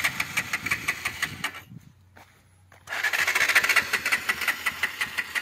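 Electric starter of a Bajaj Pulsar NS125 BS6 cranking its single-cylinder engine with a fast, even chatter. It stops about a second and a half in, then cranks again from about three seconds in, and the engine never fires. This is the model's known self-start fault: the starter turns the engine over but it won't start.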